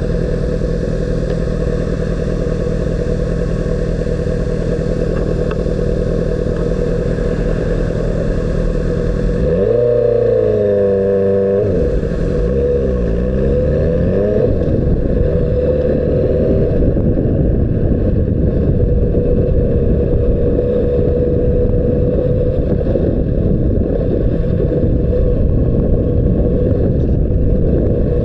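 Honda CBR600RR's inline-four engine running under way at steady revs. Between about ten and fourteen seconds in the revs dip and climb again, as in gear changes, then settle into a steady drone. The treble drops away about a third of the way in.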